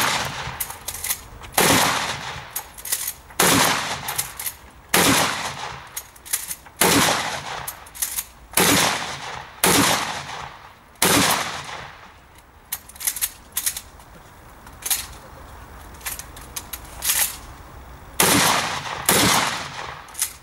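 Shotgun shots fired at a steady pace, about eight of them one every second and a half or so. Then comes a pause of several seconds with only light clicks, and two more quick shots near the end.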